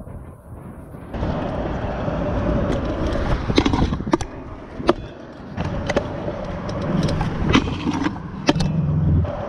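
Stunt scooter wheels rolling on concrete, with about six sharp clacks of the deck and wheels striking the ground from about three and a half seconds in.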